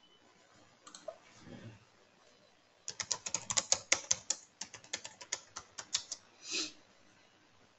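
Computer keyboard typing: a fast run of keystrokes for about three seconds as a password is entered, after a couple of clicks about a second in. A short hissy sound follows near the end.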